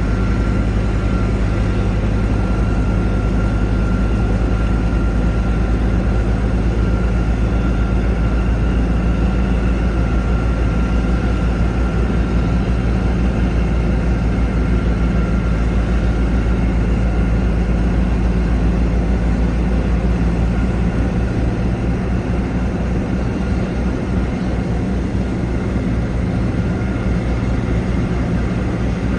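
Big Bud tractor's big diesel engine running steadily under road travel, a loud deep drone with a faint steady whine above it; the deepest rumble turns choppier about two-thirds of the way through.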